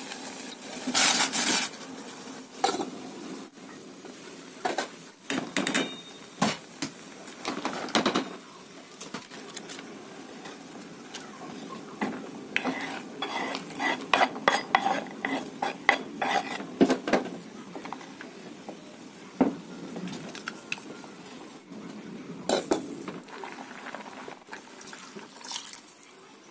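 Kitchen clatter at a stainless-steel pot of boiling water: irregular clinks and knocks of utensils against the pot, with a run of quick knocks and scrapes as sliced shallots and garlic are pushed off a wooden cutting board into it, over a steady low background.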